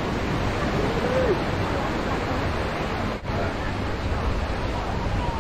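Steady rush of beach surf and wind, with a short drawn-out voice call, rising then falling in pitch, about a second in.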